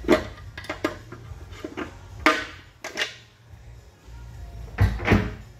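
Aluminium rocker cover coming off a V8's cylinder head: a string of sharp metal knocks and clinks as the cover and its bolts are handled. Two louder knocks come near the end.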